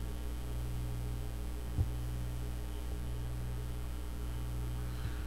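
Steady electrical mains hum in the recording, with one brief tap about two seconds in.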